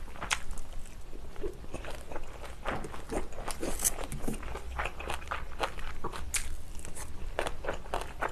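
Close-miked chewing of a mouthful of steamed rice: irregular wet smacks and clicks of the mouth, with a few sharper clicks among them.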